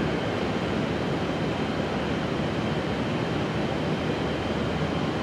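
Steady murmur of a ballpark crowd, an even wash of noise with no single sound standing out.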